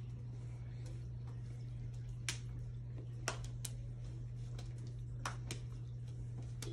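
Quiet room tone with a steady low hum, broken by about half a dozen faint, sharp clicks and taps scattered through the second half.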